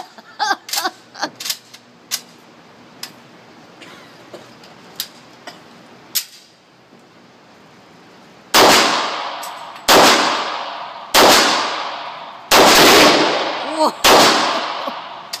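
Scattered small sharp pops and clicks, then a rapid string of five loud gunshots about a second and a half apart, each trailing off in a long echo.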